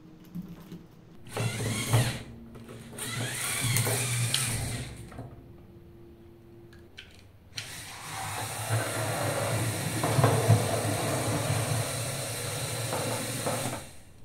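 Small electric toy motors, LEGO Power Functions and a knock-off, whirring through plastic gears as they drive small LEGO Technic cars, with the wheels rolling over the table. There are two runs: one starts about a second in and lasts about four seconds, its whine rising in pitch; the second starts about halfway through and runs until just before the end.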